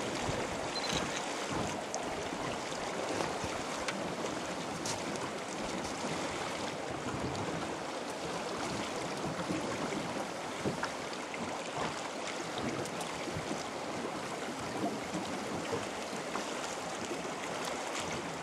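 Steady rush of a fast-flowing river current, an even wash of moving water with a few faint ticks.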